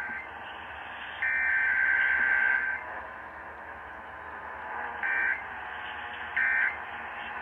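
Emergency Alert System digital data tones broadcast over the radio: a harsh buzzing burst of about a second and a half, then three short identical bursts about a second apart, over steady radio hiss.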